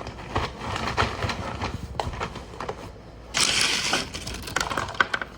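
Ice cubes clinking and crunching as they are handled and stuffed in around a container to keep it cold, with many small knocks and a louder noisy burst of about a second, a little past the middle.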